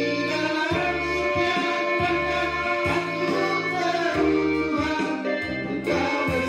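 Instrumental worship music: sustained melodic tones over a bass line that moves note by note.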